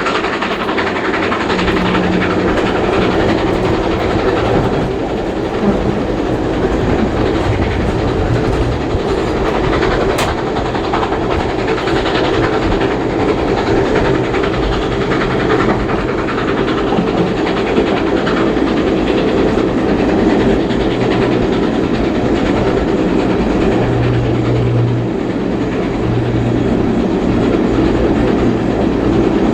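A train running along the track, heard from aboard a carriage: a steady rumble with wheels clattering over the rails.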